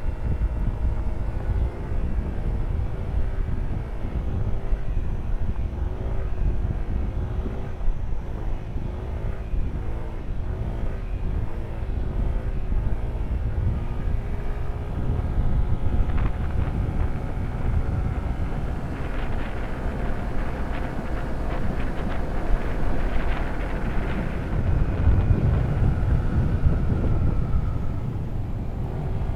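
Motorcycle engine running under way, its note rising and falling as the rider works the throttle through the bends, with heavy wind buffeting on the microphone.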